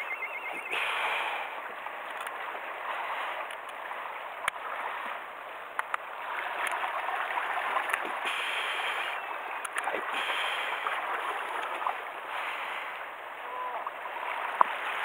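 Sea surf washing steadily against the rocks, with a few sharp clicks from scissors snipping the spines off a rabbitfish's fins.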